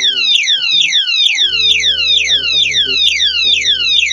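Anti-theft motorcycle alarm padlock sounding its alarm: a loud electronic siren of rapid falling sweeps, about four a second. The lock's vibration sensor has set it off.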